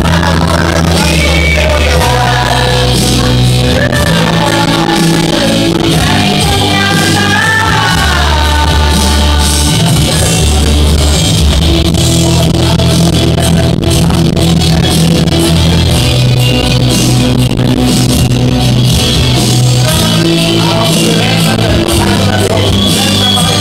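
Men singing into karaoke microphones over a loud backing track, with a bass line that holds each note for a second or two; the voices come and go, strongest in the first few seconds, around a third of the way in and near the end.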